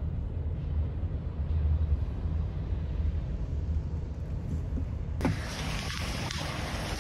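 Low road rumble inside a moving car. About five seconds in it changes suddenly to a loud, steady rush of wind and road noise blowing across the microphone.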